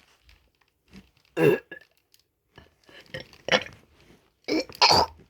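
A person burping into a microphone held close to the mouth: several short burps, the loudest about one and a half seconds in.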